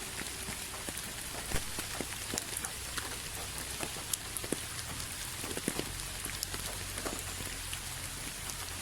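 Steady rain falling, a continuous hiss with many distinct drops ticking and splashing on a surface.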